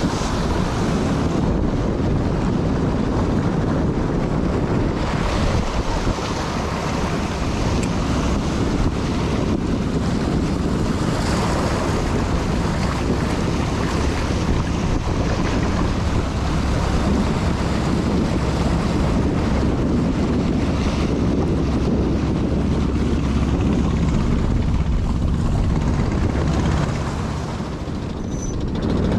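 Wind buffeting the microphone over waves washing on a rocky shore: a steady rushing noise with a heavy low rumble.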